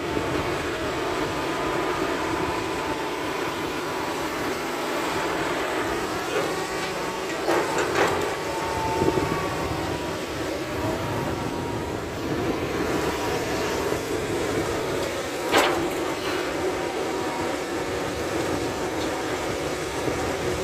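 Tracked excavator's diesel engine and hydraulics running steadily while it digs earth, with a dump truck's engine close by. A few sharp knocks stand out, about eight seconds in and again near sixteen seconds.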